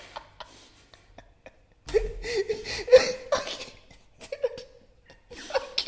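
Men laughing helplessly: faint stifled breaths at first, then a burst of high-pitched, wavering laughter about two seconds in, and another starting near the end.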